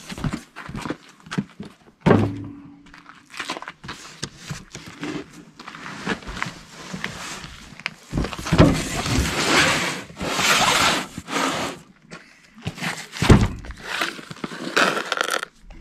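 Cardboard boxes being handled: rustling and scraping of packaging, broken by knocks and thumps as the boxes are set down on a wooden truck bed. The loudest thumps come about two seconds in and again near the end.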